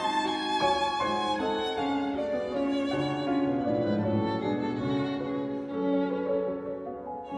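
Background music with a violin playing a melody of held notes, dipping slightly near the end.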